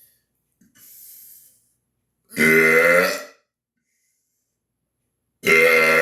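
A man deliberately belching loudly twice, each burp a drawn-out, pitched belch about a second long, the second coming about three seconds after the first. A fainter breathy sound comes about a second in, before the first burp.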